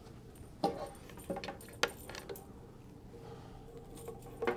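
A few light, sharp clicks and clinks as cables and their connectors are handled and fed out behind the equipment rack, three or four in the first two seconds and one more near the end.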